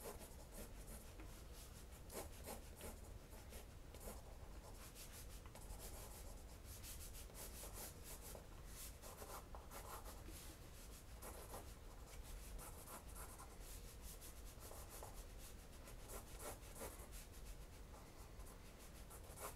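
Faint scratching of a Sharpie marker tip on sketchbook paper, in many quick, short, light strokes.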